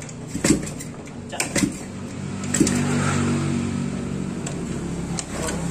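Steel front axle of a scooter being worked out of the wheel hub by hand, giving a few light metallic clicks and knocks, over a steady low hum.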